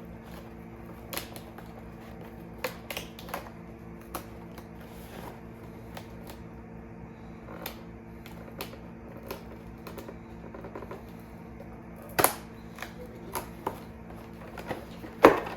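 Cardboard advent calendar door being picked open and a small sauce bottle worked out by hand: scattered light clicks and taps, with a louder snap about twelve seconds in and another near the end.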